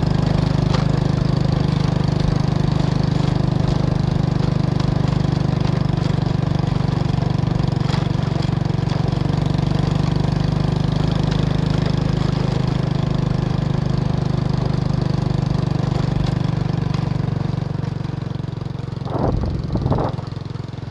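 Motorbike engine running steadily on the move, an even drone. Two brief louder bursts come near the end.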